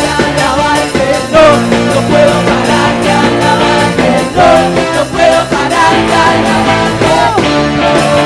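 Upbeat worship band music with a steady drum beat and a lead melody line, played through without words.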